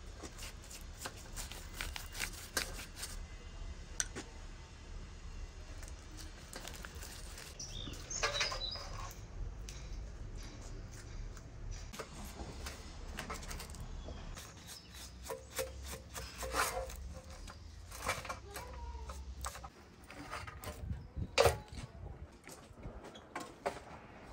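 Food-handling sounds of roast chickens on a large metal tray: a basting brush dabbing and scattered clinks and knocks of metal skewers against the tray, with one sharp clink about 21 seconds in.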